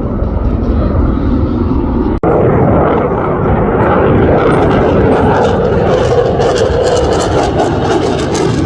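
F-22 Raptor's twin Pratt & Whitney F119 afterburning turbofans, a loud jet roar passing overhead, with a brief break about two seconds in and a rough crackle building over the second half.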